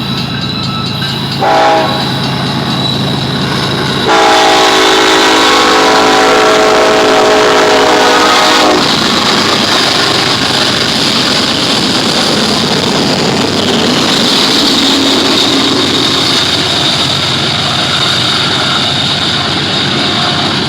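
BNSF GE ES44C4 locomotive's air horn: a short toot about a second and a half in, then one long blast of about four and a half seconds, over the steady drone of the lead units' diesel engines. Once the horn stops, the freight train's wheels and cars rumble and rattle steadily on the rails as they pass.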